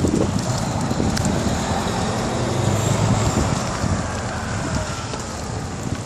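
Road traffic going by, with wind rumbling on the microphone during a bicycle ride. A faint tone rises and falls through the middle as a vehicle passes.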